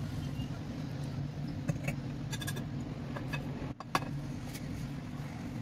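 Wire whisk stirring flour with melted butter and oil in a glass bowl: scattered light clicks and scrapes of the whisk against the glass, over a steady low hum.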